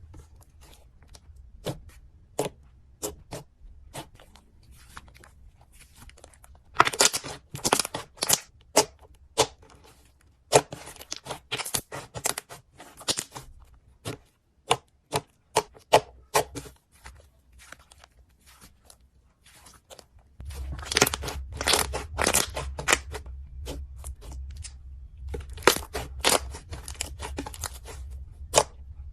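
Slime being squeezed and stretched by hand, giving irregular sharp pops and crackles that come in clusters. About twenty seconds in, a steady low hum joins underneath.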